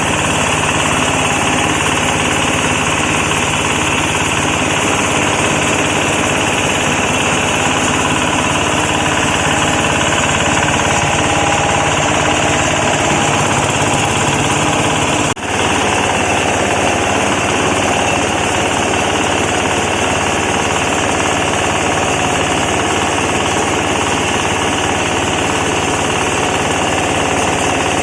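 Shredding machine for foam and scrap fabric running, giving a loud, steady mechanical clatter, with a momentary break about halfway through.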